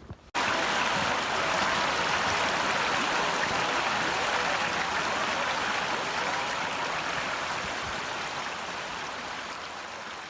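A steady rushing noise like running water that starts abruptly and slowly fades out.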